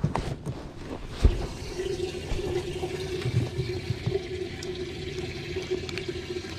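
Bass boat livewell pump running, water splashing and pouring into the livewell with a steady motor hum that comes on about a second and a half in, after a sharp knock.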